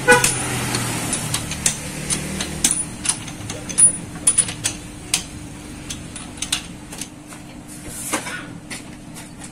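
Metal clicks and clinks of a lug wrench working a car's wheel nuts, some with a short high metallic ring, over a faint steady hum.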